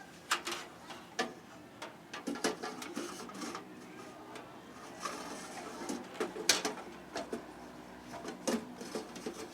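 Hands fitting parts and cables back into a desktop computer case: irregular clicks, knocks and scrapes of metal and plastic, with a sharper knock about six and a half seconds in.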